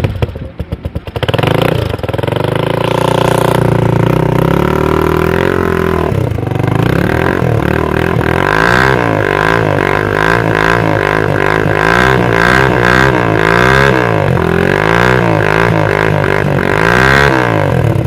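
Hi Speed Infinity 150 motorcycle's 150cc single-cylinder engine heard at the exhaust. It starts in the first couple of seconds, idles steadily, then from about eight seconds in is revved repeatedly, the pitch rising and falling with each blip of the throttle.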